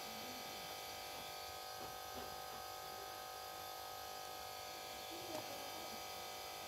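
Faint, steady electrical hum with a thin whine that does not change, with a couple of small, brief sounds about two seconds in and again about five seconds in.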